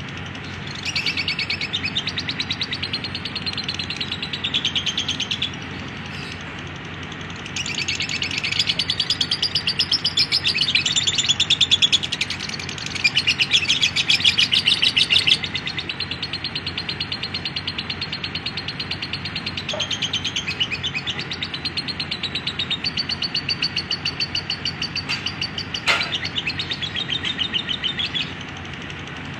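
Lovebird 'ngekek': a long, rapid, high-pitched chattering trill, the extended song prized in contest lovebirds. It comes in two long bouts, a short one and then one of about twenty seconds that is loudest in its first half, over a steady background hiss, with one sharp click near the end.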